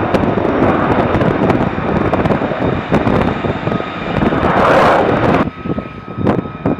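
Loud jet engine noise from an F-35B's F135 turbofan on its takeoff roll, building to a peak about five seconds in. It cuts off suddenly, leaving quieter jet noise with a faint steady whine, and comes back loud near the end.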